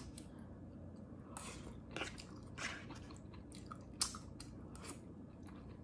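Eating sounds of a mouthful of fettuccine with chicken and broccoli being chewed: scattered short, wet mouth noises and smacks, with one sharper click about four seconds in.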